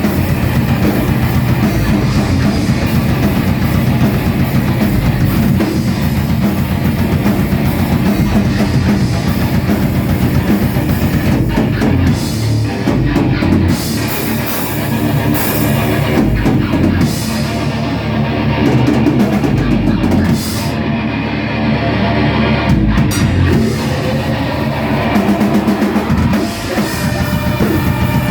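A rock band playing live: drum kit and electric guitars, loud and continuous, in a heavy rock style.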